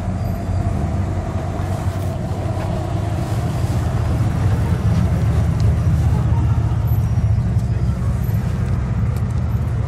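Classic cars driving slowly past at walking pace, a lowered Datsun Z coupe and then a Rambler station wagon, their engines running with a steady low rumble that swells a little as the Datsun passes close by.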